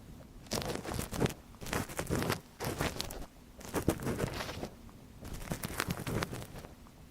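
ASMR ear cleaning close on the microphone: crackling, crinkly scratching in bursts of about half a second to a second, with short pauses between.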